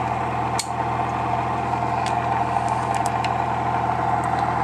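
Bedini SSG pulse motor running steadily, a continuous hum and buzz from its spinning rotor and pulsed coils, with a few light clicks over it.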